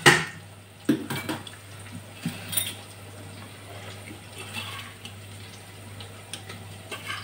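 A metal utensil clinks sharply against a steel plate at the start, followed by a few lighter clicks and soft handling noise over a steady low hum.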